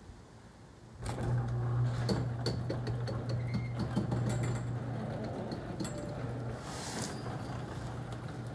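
A steady low motor hum starts suddenly about a second in, with scattered clicks and rattles over it; the hum drops away about six and a half seconds in, followed by a brief swish.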